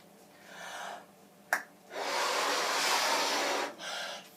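A person blowing up a balloon by mouth: a long, hard blow into it lasting nearly two seconds, with shorter, weaker breaths before and after it. A single sharp click comes shortly before the long blow.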